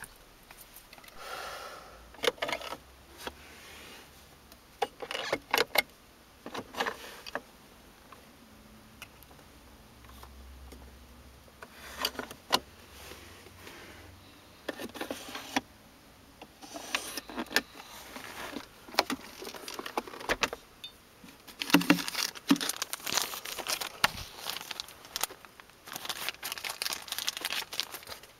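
Scattered clicks, taps and rustling from hands and a handheld camera moving about a car's centre console. Near the end, about three-quarters of the way in, it becomes a denser run of crackly rustling.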